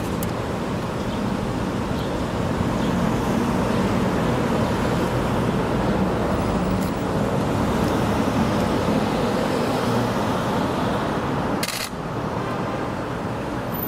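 Steady street traffic noise: the even hum and hiss of passing cars, with a brief click and dip about twelve seconds in.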